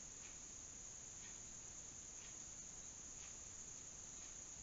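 Faint, steady high-pitched trill of crickets, with a soft chirp repeating about once a second.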